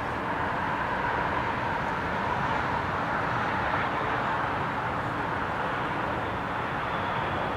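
Steady rumble of distant vehicle noise, swelling a little in the middle and easing off toward the end.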